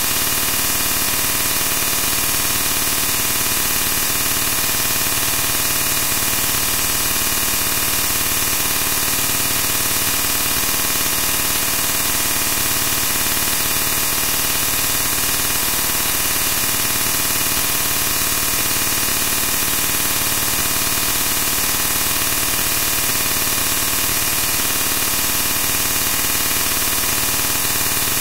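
Steady, loud static-like hiss filling every pitch, brightest in the highs, with faint steady tones in it and no change in level.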